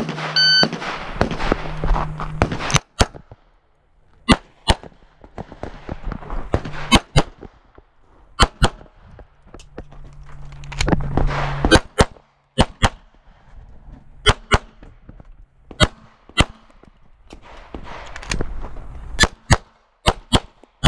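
A shot timer beeps once to start the stage, then a 9mm Beretta 92 pistol is fired about twenty times, mostly in quick double taps, in bursts separated by short pauses.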